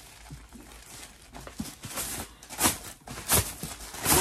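Thin plastic bag rustling and crinkling as it is handled and pulled off a fabric case. It grows louder in the second half, with three sharp crinkles.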